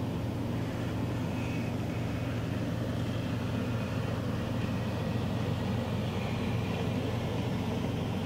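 Steady low mechanical hum of a ventilation or air-conditioning unit running.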